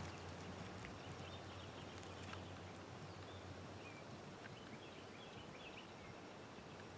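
Quiet open-air background hiss with a few faint bird chirps in the middle.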